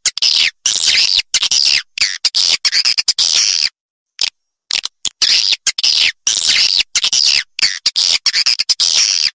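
Recorded swiftlet calls used as a lure: dense, rapid twittering and chirping of swiftlets, played to draw swiftlets into a nesting house. The chirping runs in quick phrases with short breaks and drops to dead silence for about a second around four seconds in.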